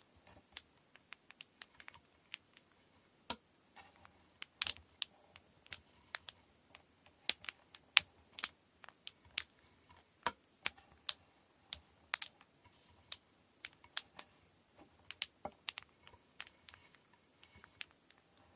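Quick, irregular light clicks and taps, a few a second, as kumihimo braiding tools and cotton threads are handled in the preparation work.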